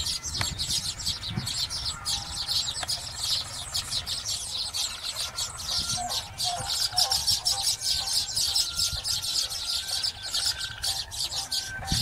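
A colony of baya weavers chattering: a dense, continuous high-pitched chatter of rapid ticking notes, with a low rumble underneath.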